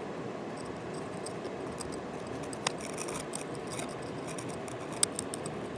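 Steel blade scraping and ticking against rock in a bedrock crevice as it works to pry out a piece of gold, with two sharper clicks about 2.7 and 5 seconds in. A steady rush of river water runs underneath.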